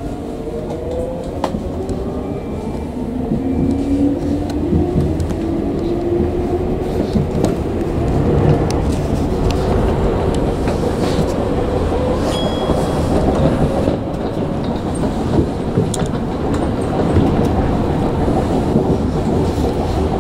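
Tokyu 9000 series electric train running, heard on board: its traction motor whine rises slowly in pitch through the first half as it gathers speed, over a steady rumble of wheels on rail with occasional rail-joint clicks.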